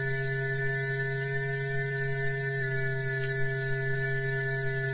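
Steady electrical hum with background hiss on an old film soundtrack, unchanging throughout, with no sound of the container being moved.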